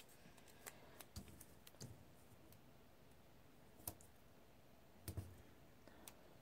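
Faint, scattered clicks and taps of fingers and nails on paper as planner stickers are peeled off a sticker sheet and pressed onto planner pages; the clearest ticks come about four and five seconds in.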